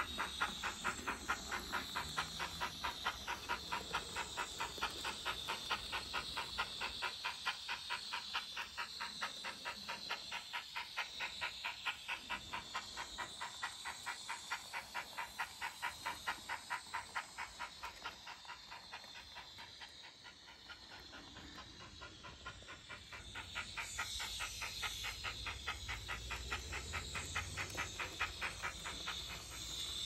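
Sound-fitted N gauge model steam locomotive's sound decoder chuffing in a steady, even beat as it hauls its train. The beat fades about two-thirds of the way through, then comes back with a low rumble underneath.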